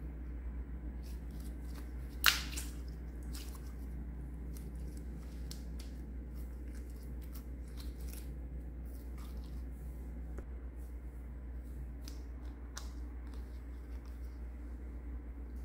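Clear slime being squeezed and kneaded by hand, giving small sticky clicks and pops, with one sharp, louder pop about two seconds in.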